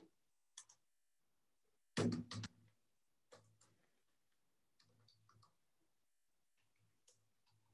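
Scattered computer keyboard keystrokes in short runs of a few clicks, the loudest run about two seconds in.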